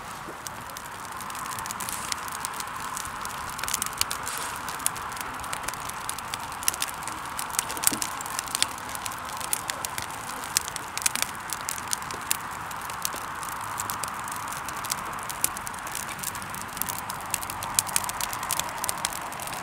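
Wood fire crackling: irregular sharp pops and snaps over a steady hiss.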